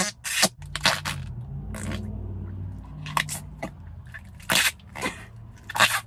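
Flarp noise putty squeezed and worked in its tub, giving a low buzzing fart noise that starts about half a second in and runs for several seconds, with short sharp squelching pops scattered through it.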